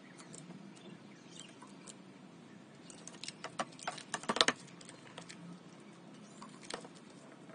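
Light clattering clicks and knocks of a mechanical keyboard being handled, bunched in a quick run about three to four and a half seconds in, with one more click near the end.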